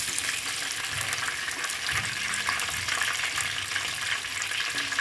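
Chicken pieces deep-frying in hot oil in a pan: a steady sizzle with fine crackling, as the last pieces finish frying and are lifted out.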